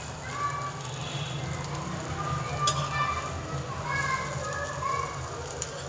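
Shami kababs frying in shallow oil on an iron tawa, a steady sizzle as they are turned over with a metal spatula, with one sharp tap near the middle.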